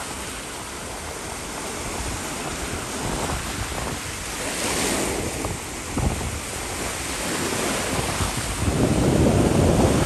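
Small sea waves washing and breaking over shoreline rocks, a steady rush of surf that swells about halfway through and grows louder near the end.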